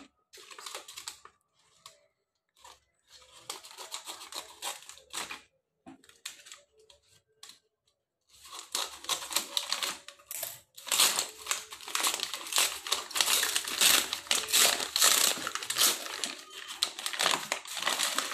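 Paper rustling and crinkling as a kraft-paper mailer is cut open with scissors and handled, in scattered short bursts at first. From about halfway through it becomes continuous, louder crumpling as hands reach into the paper bag.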